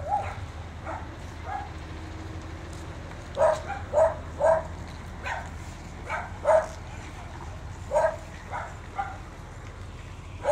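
A dog barking: about ten short barks, often two or three close together, starting about three seconds in.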